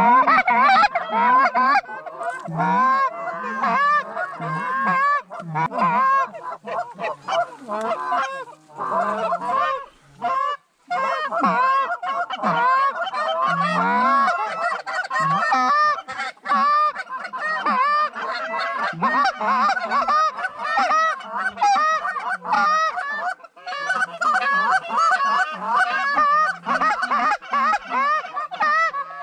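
Several hand-blown goose calls honking and clucking hard and without let-up, imitating Canada geese to draw in a flock, with a brief pause about ten seconds in.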